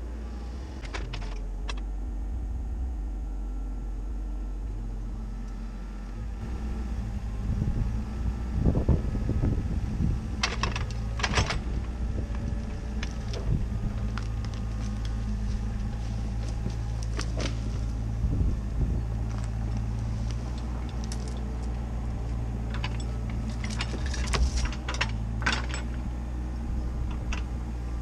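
CAT 304CR mini excavator's diesel engine running steadily, picking up about six seconds in as the hydraulics work, while its bucket and thumb drag and lift a branchy log. Sharp knocks, clunks and cracking of wood and branches come through it, mostly in two clusters, a third of the way in and near the end.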